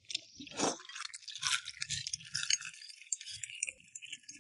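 Light clinks and rattles of tableware during a meal, with scattered small clicks.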